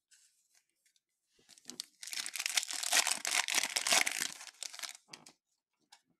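Foil wrapper of a baseball card pack being torn open and crinkled by hand: a dense crackling tear starting about two seconds in and lasting some three seconds.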